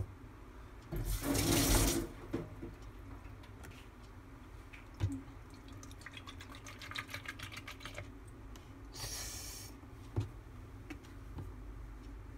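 Milk being poured into a plastic blender jar of banana, a loud splashing pour lasting about a second near the start. Quieter small clicks follow, then a short hissing rub.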